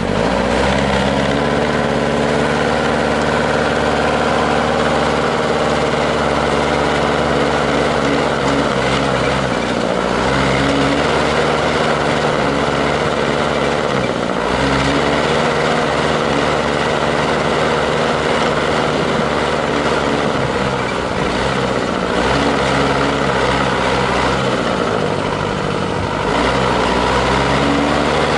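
GAZ-66 army truck's engine working under load as the truck pushes through deep snow, its pitch rising and falling with the throttle and dropping briefly several times, about a third of the way in, halfway through and near the end.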